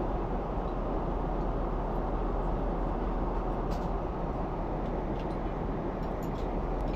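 Airliner cabin noise in cruise: the steady roar of engines and airflow heard inside the cabin, with a low hum and a few faint light clicks.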